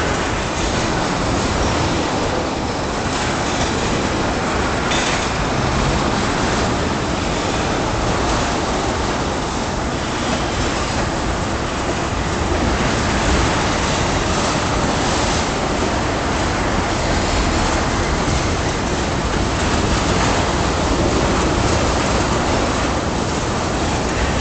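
Freight train of ethanol tank cars rolling past: a steady, continuous rumble of steel wheels on the rails, with now and then a faint knock.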